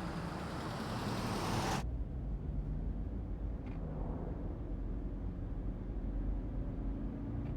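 Steady low rumble of road traffic or a car on the move. About two seconds in, a brighter hiss over it cuts off abruptly, and the low rumble carries on alone.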